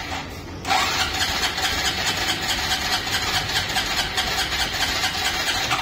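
Hero Super Splendor's single-cylinder four-stroke engine running, the throttle opened about half a second in so the sound jumps louder, then holding a steady pulsing run.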